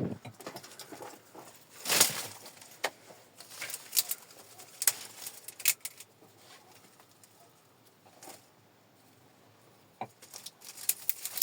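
Irregular light clicks and knocks: a cluster of sharp taps, a quiet stretch in the middle, then a few more taps near the end.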